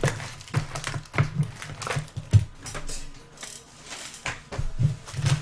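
Card box packaging being handled and ripped open: a string of irregular crinkles, tears and snaps of wrapper and cardboard.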